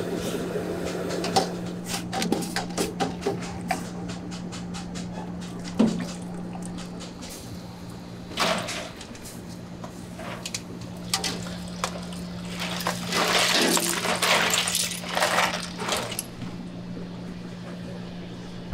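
Takoyaki batter being poured onto a hot takoyaki pan, hissing in several bursts, the longest about two-thirds of the way through. Under it runs a steady low hum, and there is a run of light clicks about two seconds in.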